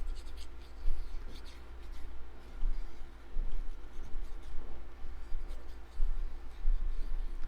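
Cut cardstock pieces being handled and rubbed on a work surface: light scratchy rustles and small taps, over a steady low hum.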